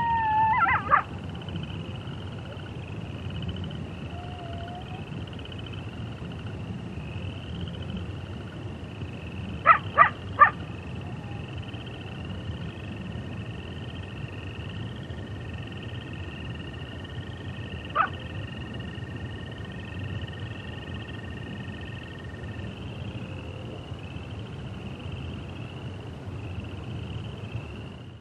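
A gray wolf's howl trails off in the first second. Then comes a steady outdoor background with a faint high chirp repeating evenly, broken by two short sharp yips about ten seconds in and a single one near eighteen seconds.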